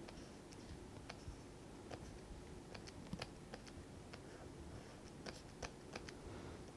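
Faint, irregular clicks and taps of a stylus on a pen tablet while drawing, over low room hiss.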